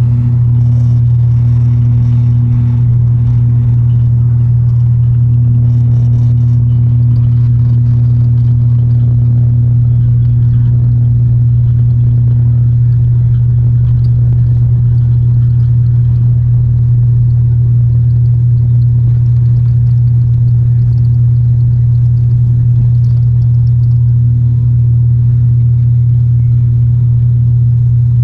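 An ATR 72-500 turboprop's Pratt & Whitney PW127 engine and six-blade propeller at takeoff power, heard from a cabin seat beside the engine. It makes a loud, steady, deep propeller drone, with a fainter hum an octave above that comes and goes.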